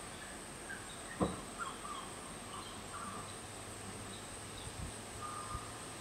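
Quiet outdoor background: a steady faint hiss with a thin high tone running through it, a few faint short bird calls, and one sharp knock about a second in.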